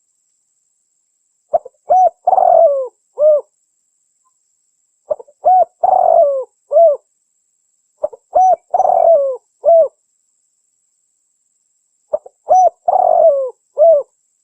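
Spotted dove (terkukur) cooing: four calls about every three to four seconds, each a couple of short coos, a longer rolling coo and a final short coo, used as a lure call for rival doves.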